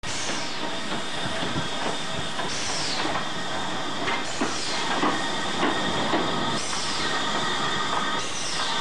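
Small steam tank locomotive moving slowly alongside the platform, with a steady hiss, scattered clicks from the wheels over the rails and a high, steady squeal.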